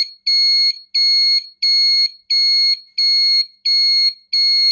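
Motorcycle turn-signal flasher relay beeping through its built-in buzzer, a high-pitched beep of about half a second repeating evenly about three times every two seconds: the repaired flasher is switching properly again.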